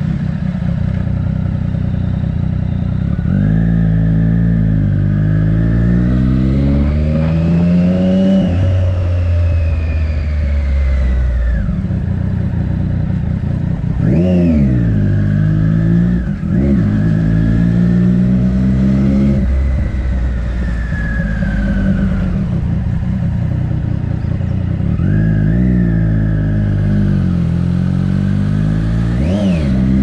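Triumph Daytona 675's inline three-cylinder engine through an Arrow exhaust, ridden at low speed. The revs climb and drop back repeatedly, with a quick, sharp throttle blip about halfway through and another near the end.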